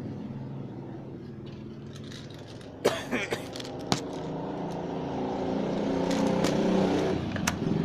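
Several sharp clicks and light rattles from handling a spring-powered airsoft rifle, the first two about three and four seconds in and another near the end. Under them runs a steady engine-like hum that grows louder in the second half.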